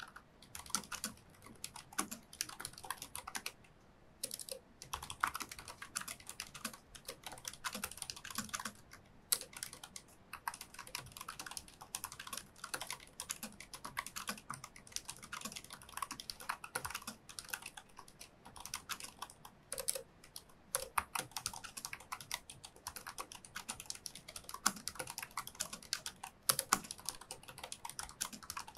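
Fast, continuous typing on a Razer DeathStalker V2 Pro low-profile keyboard with linear (red) switches: a dense stream of key clacks, with a brief lull about four seconds in.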